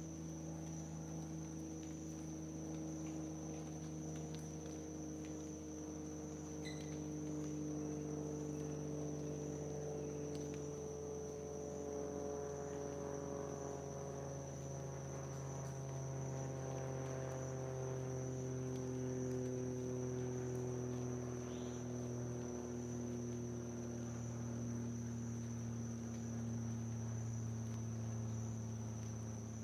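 Insects trilling steadily at a high pitch, with a low droning hum beneath them whose pitch slowly falls over the course of about half a minute.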